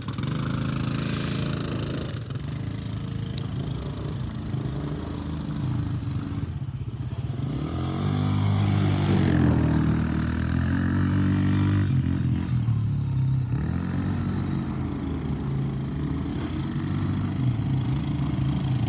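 Quad ATV engines running and revving as the quads ride past, the pitch rising and falling with the throttle. It is loudest from about eight to fourteen seconds in.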